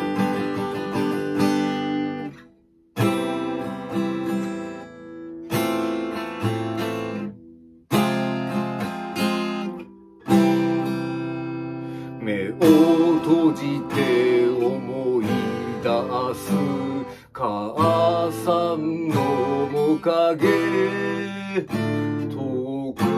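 Steel-string acoustic guitar strummed and picked through a song's introduction, the chords stopping briefly a few times. From about twelve seconds in, a man's voice sings a melody over the guitar.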